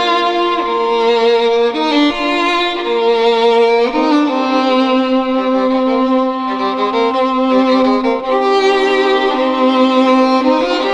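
Background music: a violin playing slow, held notes over other sustained notes.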